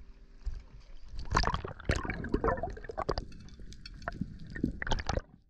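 Seawater splashing and gurgling around the camera as a snorkelling spearfisher dives from the surface and goes under, in a run of irregular sloshes and bubbling.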